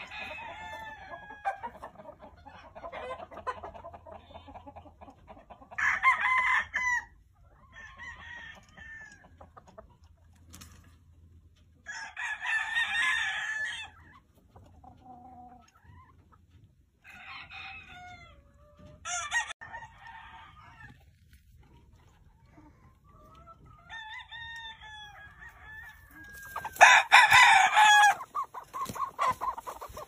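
Gamefowl roosters crowing several times, the loudest crows about halfway through and near the end, with quieter clucking between them.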